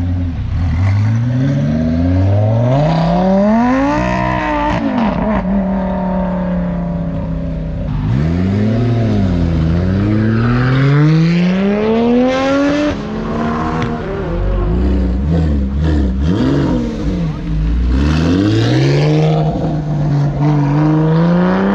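Car engine revved hard again and again, its pitch climbing and dropping several times, as the car is driven with its back end swinging out.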